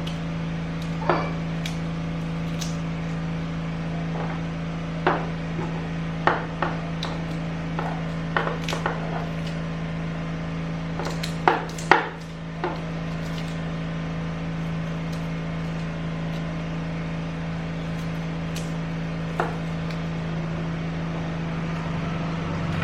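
Scattered knocks and taps as garlic is handled on a kitchen work surface, over a steady low hum.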